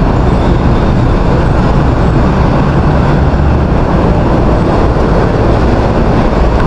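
Loud, steady rushing noise of riding a mountain bike: wind buffeting the body-worn camera's microphone, with road noise beneath it.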